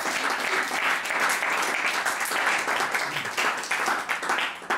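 Audience applauding: dense clapping that holds steady, then begins to thin out near the end.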